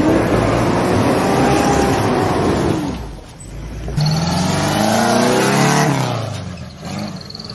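Loud motor vehicle engine revving in two abrupt cuts: in the first, the engine note falls over about three seconds; in the second, it climbs and then drops again.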